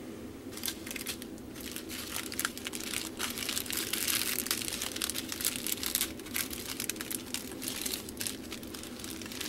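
Small clear plastic packets of diamond painting drills crinkling and rustling as they are handled and sorted, with many quick irregular crackles throughout.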